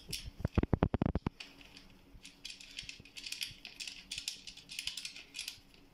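Hands fitting an e-bike's front fender and light bracket to the fork: a quick run of about eight sharp clicks in the first second, then softer scratching and rubbing.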